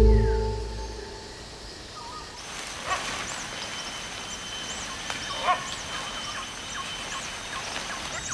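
Tropical forest ambience: a steady high insect drone with repeated short bird chirps and a few louder bird calls. The last mallet-percussion music notes ring out and die away in the first second.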